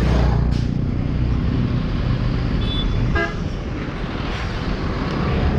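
Motor vehicle engine running close by with road noise, and a brief vehicle horn toot about three seconds in.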